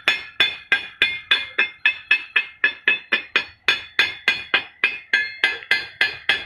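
Fast, even hammer blows on steel, about four a second, each ringing with a bright metallic tone, stopping abruptly near the end.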